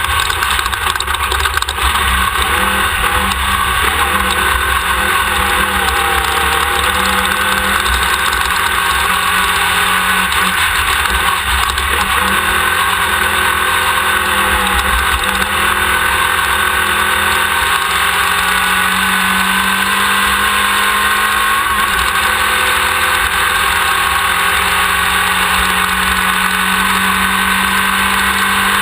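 Onboard sound of a Class 1600 off-road race car under way: a steady, loud engine drone that drifts slowly up and down in pitch, mixed with dense wind and running noise, heard close from a rear-mounted camera.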